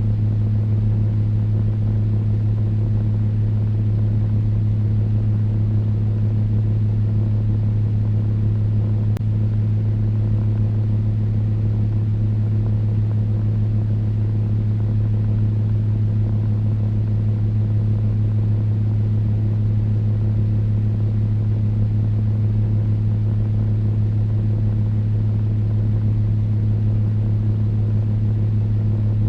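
Electric fan running steadily: a constant low motor hum with a fainter higher tone, over an even rush of moving air.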